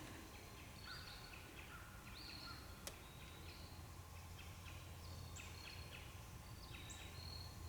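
Faint bird calls: short, repeated chirps over a low steady hum.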